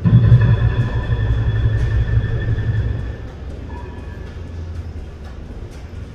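Demolition work: a sudden loud low rumble with high metallic squealing for about three seconds, then a quieter rumble with scattered knocks.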